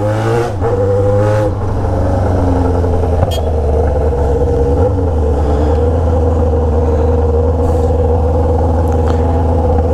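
Yamaha XJ6's inline-four engine running through an Atalla straight-pipe exhaust, at low, fairly steady revs as the motorcycle is ridden slowly.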